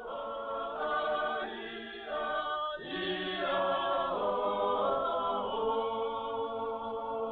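Background music: a choir singing slow, held chords that change about once a second.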